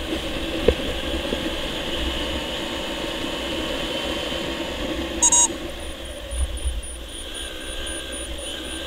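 100cc motorcycle engine running steadily at road speed, with wind and road noise. A short loud beep sounds about five seconds in, followed by a faint high-pitched beeping, about four a second, for the last three seconds.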